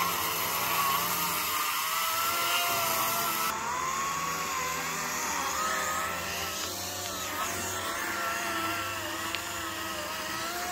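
Chainsaw running while cutting back tree branches. Its pitch wavers up and down as it cuts, with no break.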